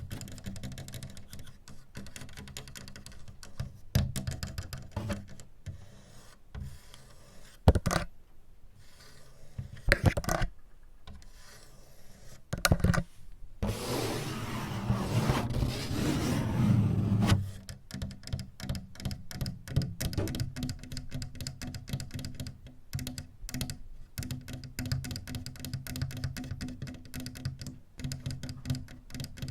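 Fast tapping and clicking of clips worn on the fingertips, with a few louder knocks. About halfway through, a few seconds of continuous scratching and rubbing.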